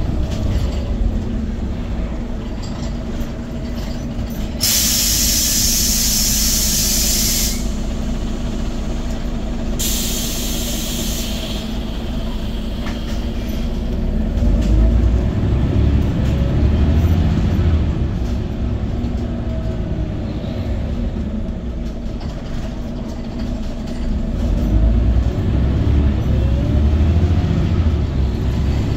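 Scania OmniCity city bus heard from inside the passenger cabin while under way: steady engine and drivetrain drone that swells as it pulls away or accelerates. There are two loud bursts of compressed-air hiss, one about five seconds in lasting a few seconds and a shorter one about ten seconds in, from the bus's air system.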